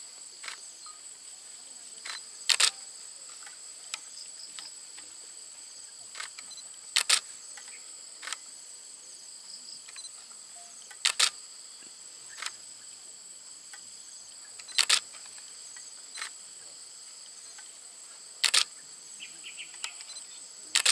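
Steady, high-pitched insect chorus of several droning tones, broken about every four seconds by a sharp double click, louder than the chorus, six times in all.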